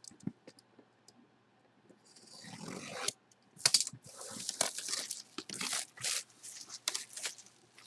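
Packaging of a sealed jersey box being torn open by hand: a few small clicks, then a run of tearing and crinkling strokes.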